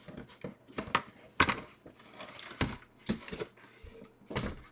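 Hands rummaging in an opened cardboard shipping box: a few irregular short knocks, scrapes and rustles of cardboard and packaging being handled.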